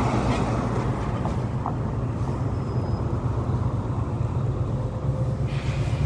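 Wind buffeting a phone's microphone: a steady low rumble with a rushing noise above it.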